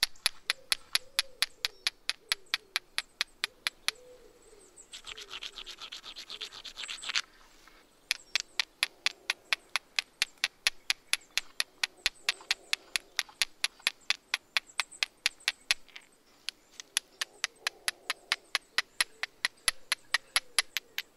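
Flint struck again and again against a lump of iron pyrites to throw sparks onto tinder: sharp clicking strikes, about three a second. About five seconds in comes a louder run of rapid scraping strikes that grows for two seconds and stops abruptly.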